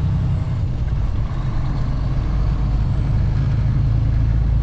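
Steady low engine and road drone heard inside the cab of a Western Star semi truck cruising on the highway.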